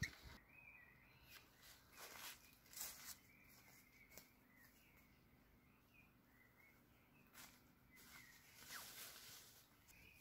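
Faint woodland ambience: small birds chirping in the distance, with a few soft rustles in dry leaves.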